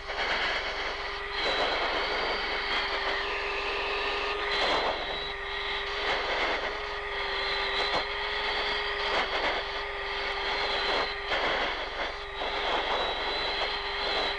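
Jet aircraft engine running steadily on approach: a continuous rushing noise with a steady whine and a high-pitched tone held over it.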